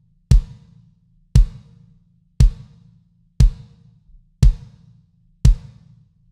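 Six single kick drum strokes, about one a second. The drum is a 22x16-inch Tama Starclassic Performer bass drum with its batter head tuned low, just above wrinkle, and heavily muffled with a pillow and two blankets inside. Each stroke is a short, deep hit with a sharp click of attack that dies away quickly, heard as the mixed, miked kick sound.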